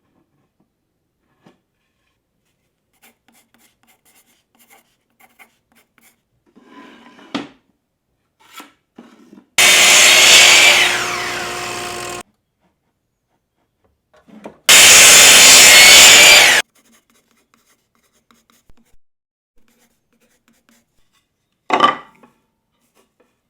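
Two loud bursts of a power tool cutting or working wood, each a couple of seconds long and starting and stopping abruptly. The first falls in pitch and level as it goes. Quieter knocks and clicks of tools and wood being handled come in between and near the end.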